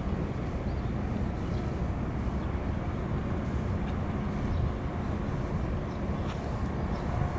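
Steady low outdoor rumble with no distinct events, an open-air field-recording ambience.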